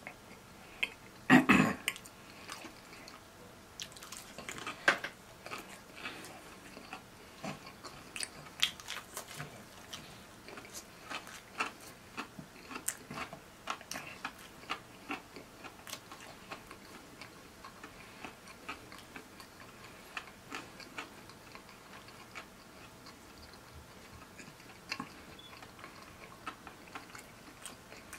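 Close-miked eating of a crispy fried chicken breast: the breading tears and is chewed with many small sharp crackles and wet chewing clicks. A louder burst of crackling comes about a second and a half in.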